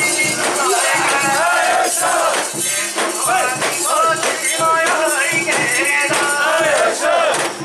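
Crowd of mikoshi bearers chanting and calling together in rhythm as the portable shrine is carried, with a jingling, rattling beat about twice a second.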